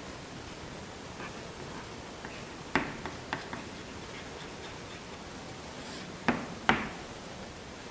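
Steady room hiss with a few short, light taps and clicks: two just under 3 seconds in and two more around 6 to 7 seconds.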